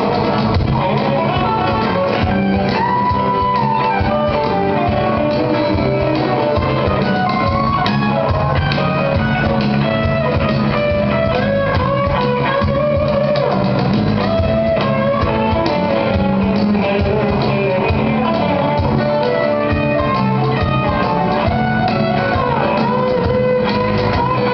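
Live band playing: electric bass, acoustic guitar and a cajon keeping a steady beat, with guitar notes carrying the melody.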